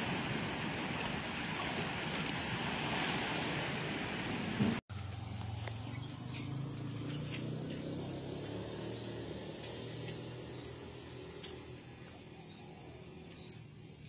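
Wind and small waves washing in shallow sea water. About five seconds in, this cuts off to a quieter low steady hum with a series of short, high, falling bird chirps.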